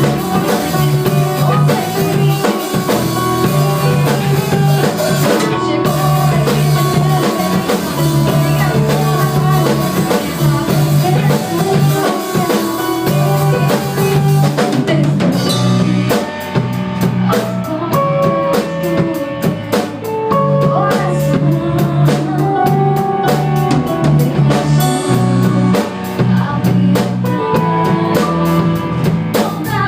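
A rock band playing: drum kit, electric guitar and bass. From about halfway through, rapid, evenly spaced drum strokes come to the fore over the held guitar and bass notes.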